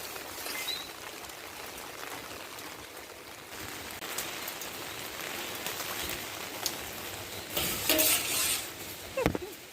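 Heavy rain falling steadily, drops spattering on surfaces, with a louder rush about eight seconds in.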